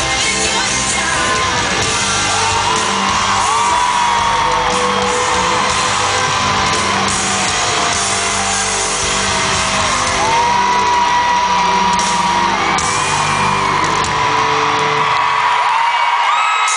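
Live pop music in an arena, heard from the audience: a band with singing, with high fans' screams and whoops held over it. Near the end the bass and drums drop away.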